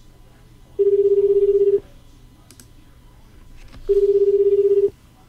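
Ringback tone of an outgoing phone call ringing unanswered: a steady single tone about a second long, heard twice about three seconds apart.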